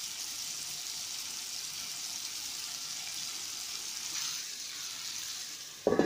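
Chicken pieces frying in oil with onion and garlic, a steady sizzle. Just before the end a stainless-steel lid is set on the pan with a short clank, and the sizzle goes muffled.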